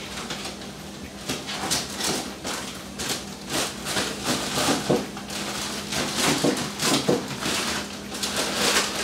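Irregular rustling, clicks and light clatter of plastic ziplock bags and kitchen items being handled and put away, over a steady low hum.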